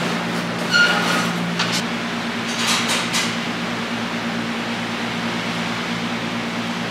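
Steady low machine hum, with a few light clinks in the first three seconds.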